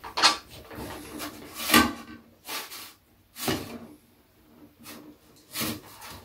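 Kitchen knife scraping and cutting through a halved melon's flesh and rind on a plate, about five rasping strokes with short pauses between them.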